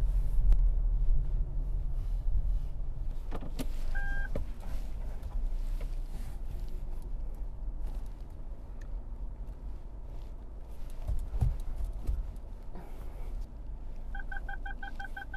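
Car cabin noise while driving slowly: a steady low engine and road rumble, a single short electronic beep about four seconds in, and near the end a rapid run of about ten beeps, roughly seven a second, from the car's parking sensors.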